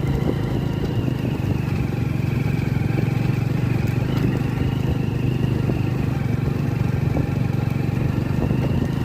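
A motor vehicle engine running steadily with road noise, an even hum with no changes in pitch.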